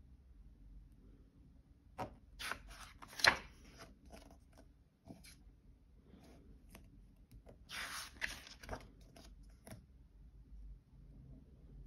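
Paper pages of a crochet pattern book being turned by hand, twice: a rustle and flap of paper about two seconds in, the loudest moment, and another about eight seconds in.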